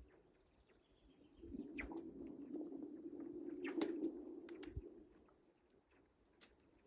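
Spring lake ice breaking up on Lake Päijänne: a low moaning hum rises about a second and a half in and fades just before the five-second mark, with sharp cracks and pings over it, the sharpest near four seconds.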